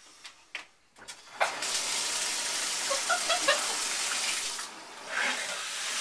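A few light clicks, then, about a second and a half in, water comes on and runs as a steady hiss of spray from a newly fitted handheld shower head, dipping briefly near the end.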